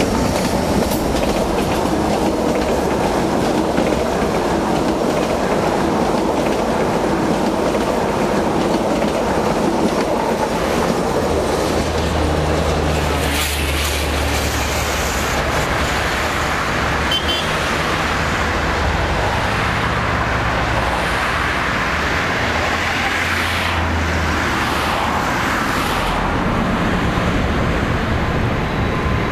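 Passenger train passing on the line below, with a steady rumble of its wheels on the rails.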